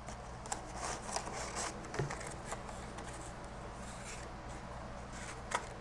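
Cardboard packaging of a boxed Intel processor being opened and handled: rustling and scraping of cardboard and paper with scattered light taps, the sharpest about two seconds in and again near the end.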